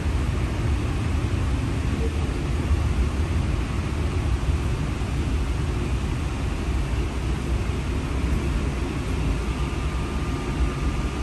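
Steady low rumble of a streetcar travelling along its track, heard from inside the passenger cabin. A faint high steady whine joins in near the end.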